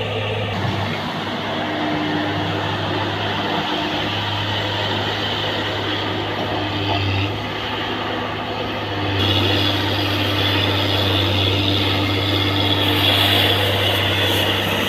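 Komatsu excavator's diesel engine running steadily with a low hum, joined by a higher whine that grows louder about nine seconds in.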